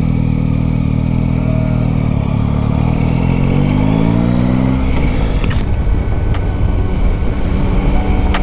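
Yamaha Tracer 9 GT's inline three-cylinder engine running at low speed, then climbing in pitch as the bike accelerates away. After about five seconds, the engine note gives way to a rush of wind noise with light regular ticks.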